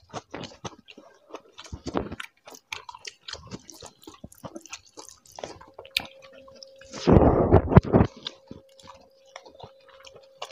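Close-up chewing and wet mouth sounds of people eating mutton curry and fried rice by hand, made up of many small clicks and smacks. A louder sound lasting about a second comes about seven seconds in.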